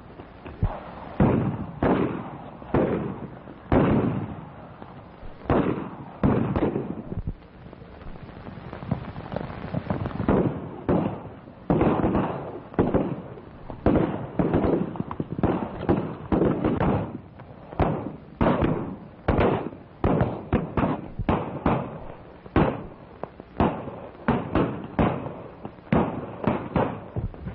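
Gunfight: dozens of gunshots fired irregularly, sometimes in quick clusters, coming thickest about two-thirds of the way through. The sound comes from an early-1930s film track with a thin, narrow sound.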